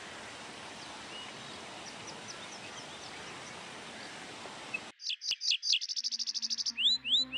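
Steady hiss of outdoor ambience with faint bird chirps. About five seconds in it cuts to loud, rapid bird chirps followed by several sweeping calls, as an electronic music track begins underneath with low sustained bass notes.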